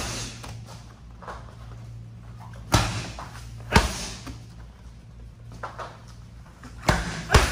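Medicine balls thrown hard in a rotational drill, each landing with a heavy, echoing thud. There are about five thuds at uneven intervals, over a steady low hum.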